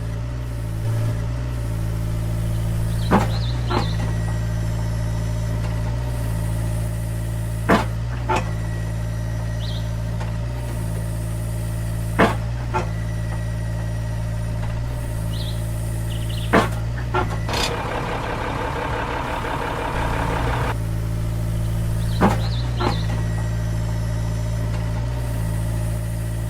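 Engine idling steadily with a low hum, a sharp click every four to five seconds and a rattling stretch a little past the middle.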